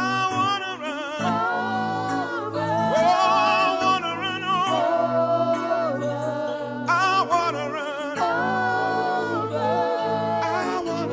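Worship singers holding long sung notes with vibrato over sustained accompanying chords.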